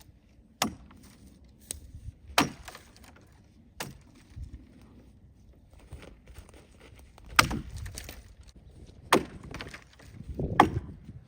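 Cold Steel Trail Boss axe chopping small limbs off a tree: about seven sharp strikes at uneven intervals, the three loudest in the second half.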